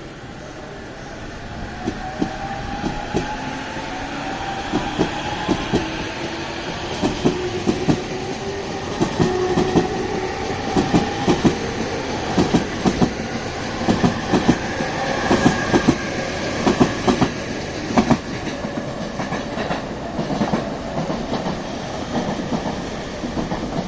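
E231-500 series electric train accelerating away, its traction motor whine rising steadily in pitch while the wheels clack over rail joints, the clacks coming faster and louder as it gathers speed.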